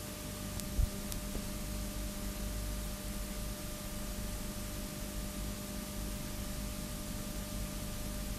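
Steady hiss and low electrical hum from a videotape playing past the end of its recording, with one short low thump a little under a second in.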